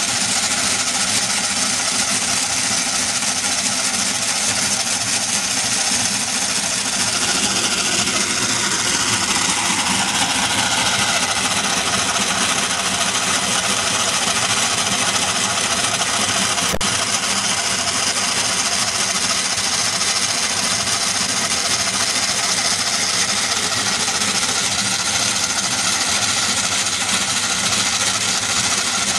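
A Merkur metal construction-set model of a one-cylinder engine running, its gears, shafts, cams and rocker arms making a steady mechanical whirring and clatter. A single sharp click stands out about seventeen seconds in.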